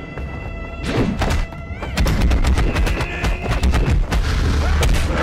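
Martial-arts fight sound effects: a rapid series of punch and strike impacts, thickest from about two seconds in, over a held music score.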